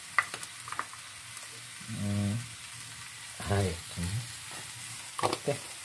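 Onion-tomato masala sizzling faintly and steadily in a hot frying pan, with a couple of light clicks of a steel spoon against the spice jar in the first second.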